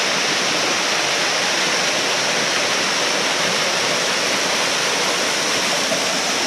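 Small waterfall cascading down a rock face and splashing into a shallow pool: a steady rush of falling water.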